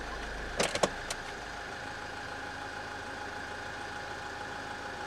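Steady hum inside a stationary car's cabin, typical of the engine idling, with two short clicks in the first second.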